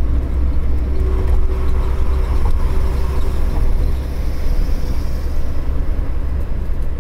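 Steady low rumble of road and engine noise heard from inside a moving vehicle at highway speed.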